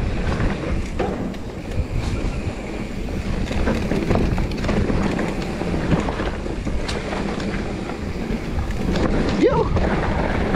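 Mountain bike ridden fast down a dirt trail, heard from a camera mounted on the rider: wind buffeting the microphone over tyre rumble on dirt, with the bike clicking and rattling over bumps. A short rising-and-falling tone sounds about nine and a half seconds in.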